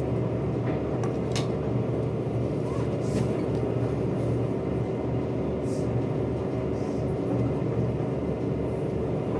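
A machine running steadily: a continuous hum with a fast, even low throb underneath and a few faint clicks.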